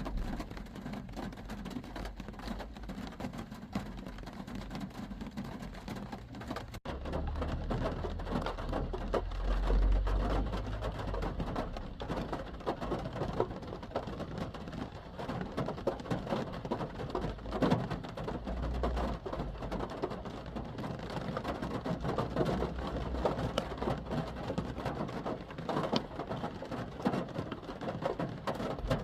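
Rain pattering on a car's roof and windows, heard from inside the car as a dense, steady crackle of drops. From about seven seconds in, a low rumble runs underneath.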